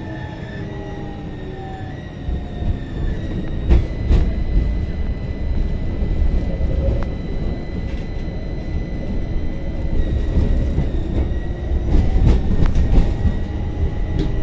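Tram running, heard from inside the car: a motor whine falls in pitch over the first two seconds, then a steady high whine sits over the rumble of wheels on rails. Sharp knocks from the track come about four seconds in and again near the end.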